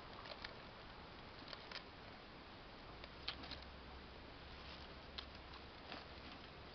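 Faint, irregular crinkles and ticks of a plastic bottle and plastic bags as a Barbary macaque rummages through a wooden rubbish bin, over a low steady hiss.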